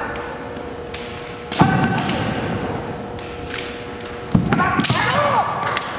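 Kendo exchange: bamboo shinai strikes and stamping footwork on the wooden gym floor, with the fighters' kiai shouts. A sharp strike and yell comes about one and a half seconds in, and a second flurry of strikes and shouts follows about four seconds in.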